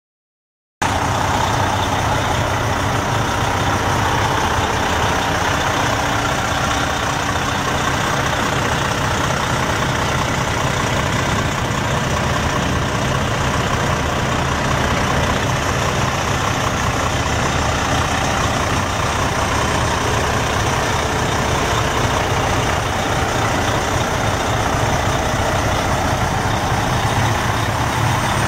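Semi truck's Detroit Diesel Series 60 12.7-litre straight-six turbo diesel idling steadily, beginning suddenly about a second in.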